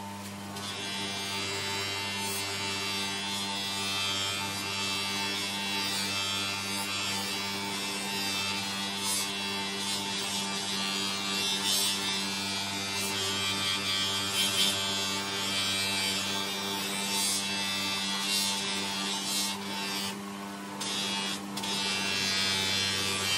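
Electric bench buffer running with a steady hum while a cricket bat's willow blade is pressed against its spinning buffing wheel, adding a hissing rub that rises and falls as the bat is moved, with brief lulls near the end.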